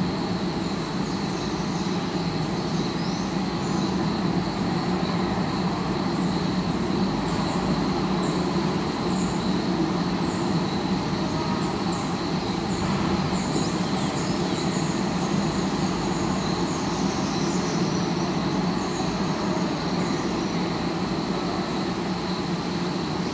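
Steady city ambience picked up by an acoustic sound mirror: a constant rumble of distant traffic with a thin high-pitched whine running through it, and short falling bird chirps scattered over most of it.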